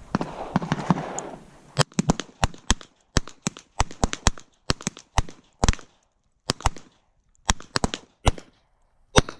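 Revolvers firing a timed series: about two seconds in, many sharp shots begin, coming quickly and irregularly, some in close pairs, more than one revolver could fire in that time, so several shooters are firing at once.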